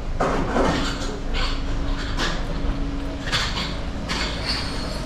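Street noise: a steady low hum under short hissing rushes that come about every second.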